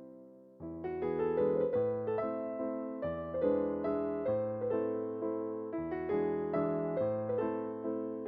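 Background music: a gentle piano or electric piano melody with chords, its notes struck and decaying, growing fuller about half a second in.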